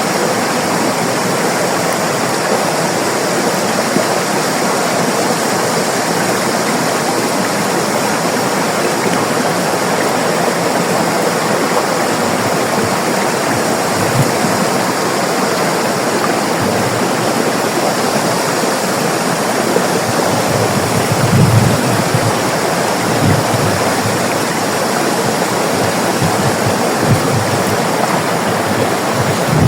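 River water rushing in a steady, dense flow. A few brief low rumbles come in during the last third.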